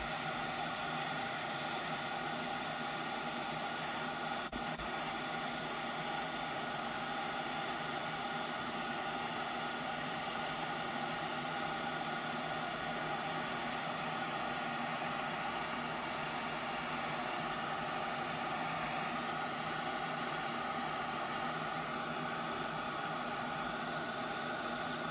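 Gas torch flame hissing steadily as it heats a steel gun mainspring to a glow before quenching.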